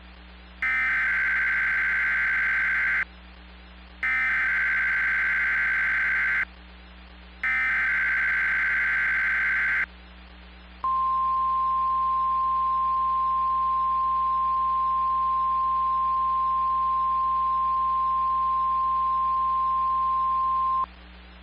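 Emergency Alert System SAME header: three identical bursts of buzzing digital data, each about two and a half seconds long and a second apart, encoding a severe thunderstorm watch. These are followed by a single steady alert tone, the NOAA Weather Radio attention signal, held for about ten seconds before cutting off.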